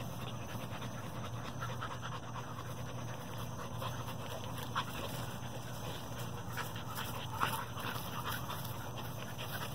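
Dogs panting with open mouths as they play, with two brief louder sounds about five and seven and a half seconds in.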